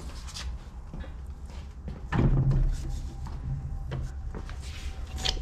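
Metal clicks and knocks of a wrench working on a tie rod's threads as the outer tie rod end is unscrewed from the inner tie rod. The loudest is a deeper clunk about two seconds in.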